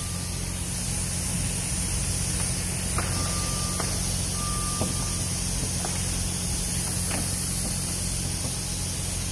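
Steady pallet-shop din: a low machine hum under a constant hiss, with a few light knocks of wooden boards being handled. A single high beep sounds briefly three times, at the start and twice around the middle.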